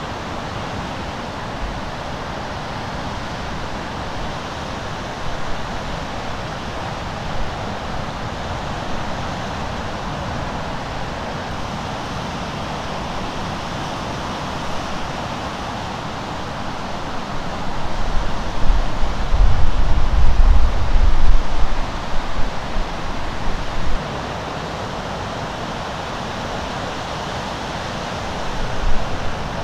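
Steady wash of Lake Michigan waves breaking along a rocky jetty, with wind buffeting the microphone in heavy low rumbles for several seconds after the middle and again briefly near the end.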